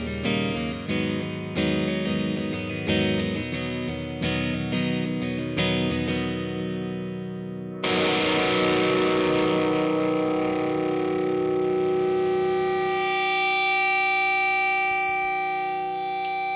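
Guitar-led song intro without vocals: a guitar strikes repeated chords that each ring and die away, then about eight seconds in a sustained distorted electric guitar chord with effects rings out and slowly fades near the end.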